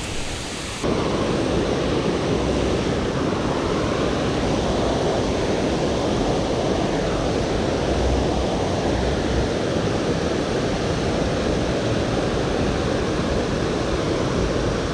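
Steady rush of water pouring over a dam's man-made waterfall, with no pitch or rhythm to it. It jumps abruptly louder about a second in, then holds steady.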